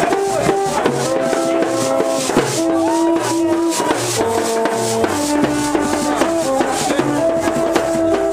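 Haitian rara band playing: vaksen trumpets sound short held notes at a few fixed pitches, interlocking in a repeating pattern, over drum strokes and a steady rattling shaker.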